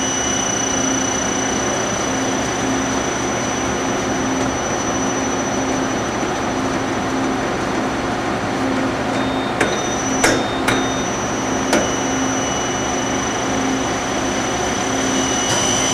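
Okuma LB25 CNC lathe spindle running at a steady speed, its 12-inch three-jaw power chuck spinning, giving an even whir with a steady high whine and a low pulsing hum. A few sharp clicks come about ten to twelve seconds in.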